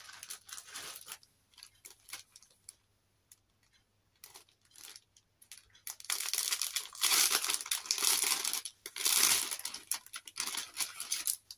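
Clear plastic packaging bag crinkling and tearing as it is pulled open by hand, with light rustles near the start and the loudest crinkling from about halfway through.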